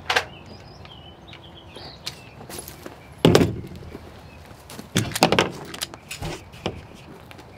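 A semi-automatic pistol being handled: a heavy thunk about three seconds in, then a run of sharp metallic clicks and clacks a couple of seconds later as the slide is worked back.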